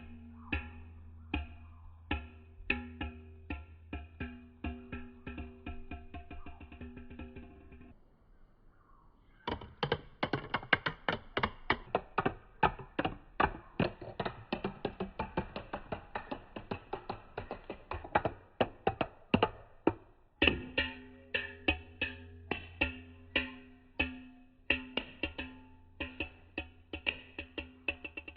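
Marbles clicking and clattering down a marble run: separate clicks at first, a dense rattle of many marbles from about a third of the way in, then separate clicks again from about two-thirds in. Low steady tones sound under the sparser parts.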